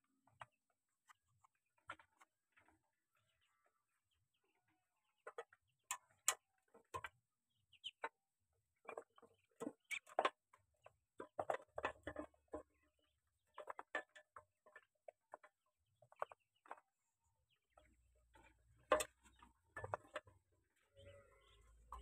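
Young Muscovy ducks feeding from a metal tray: faint, irregular clicks and taps of bills against the pan and in the dry feed, starting about five seconds in and coming in quick clusters.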